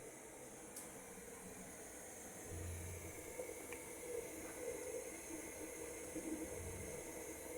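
Faint steady hiss of a gas burner under a pot of ugali cooking, with two soft low thuds, one about two and a half seconds in and one near the end.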